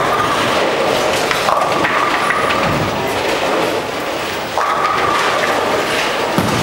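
Bowling alley din: a steady rumble and clatter of balls rolling and pins falling across many lanes in a large hall, with a few faint knocks. A faint held tone comes and goes in the background.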